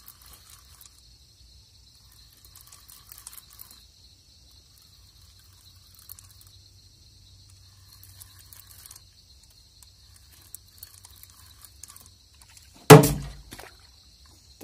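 Faint, steady, high insect chirring on a still night, with scattered small ticks. Near the end comes a single loud knock that dies away over about a second.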